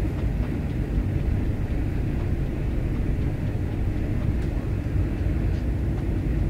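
Steady low rumbling background noise, even and unbroken, with no distinct events.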